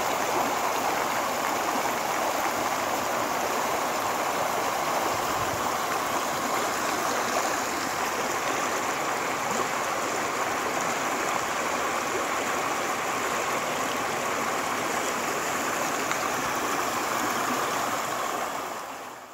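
Storm-water floodwater rushing across a flooded road, making a steady wash of water noise that fades out near the end.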